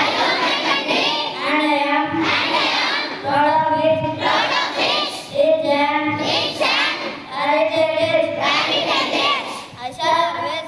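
A boy singing into a handheld microphone, with other children's voices joining in. The song comes in phrases of long held, wavering notes about a second each, with short breaks between them.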